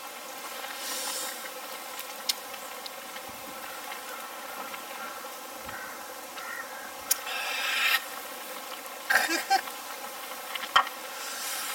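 Swedish torch (burning split log) crackling, with a few sharp pops scattered through and short rustling bursts in between.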